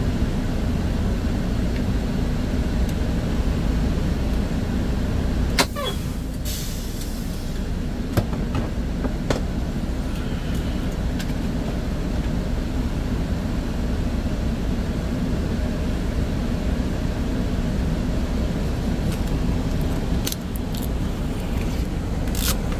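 Semi-truck diesel engine running with a steady low rumble, heard from inside the cab, with a few sharp clicks and a short hiss about six seconds in.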